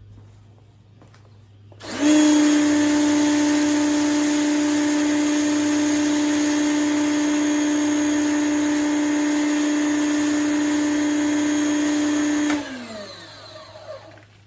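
Vlaseo electric pressure washer's motor and pump starting up about two seconds in and running steadily with a strong hum while spraying soap through the foam cannon. Near the end it shuts off and winds down, its pitch falling.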